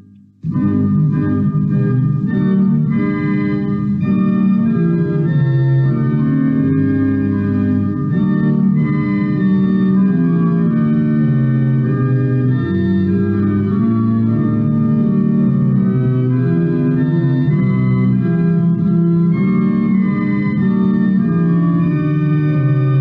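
Organ playing a hymn tune in sustained chords, starting again after a short break about half a second in.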